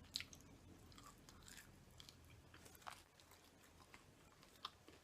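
Faint close-up chewing and biting of Popeyes fried chicken, with scattered crisp crunches and mouth clicks; the sharpest crunch comes just after the start.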